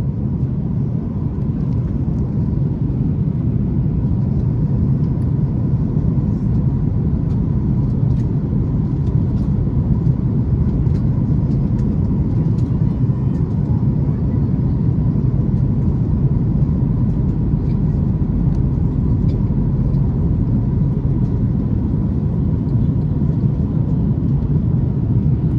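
Steady, loud low rumble of a moving vehicle heard from inside its cabin, constant throughout, with a faint steady whine above it.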